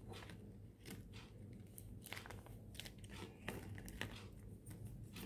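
Faint crinkling of a tape-wrapped paper squishy being squeezed by hand, in a string of short, irregular crackles.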